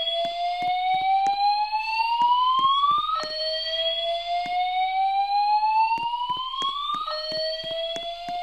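A school voice-evacuation fire alarm sounds its slow-whoop tone between spoken evacuation messages: a tone that sweeps slowly upward for about four seconds, drops back and sweeps up again. A new sweep begins about three seconds in and another about seven seconds in. Faint irregular clicks sound underneath.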